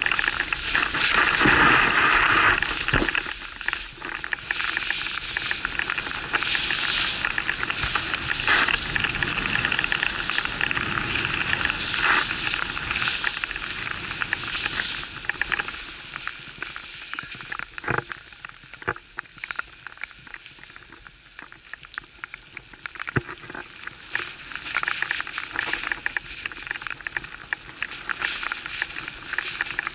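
Skis hissing through deep powder snow, rising and falling as the skier descends, with a quieter stretch a little past the middle.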